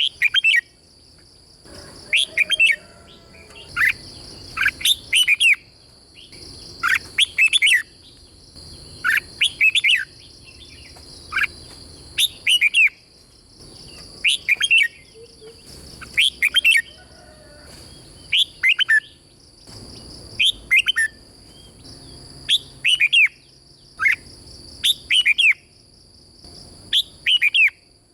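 Red-whiskered bulbul singing its rapid 'double' song: short, bright phrases of several quick whistled notes, repeated every second or two. A steady high-pitched whine runs underneath.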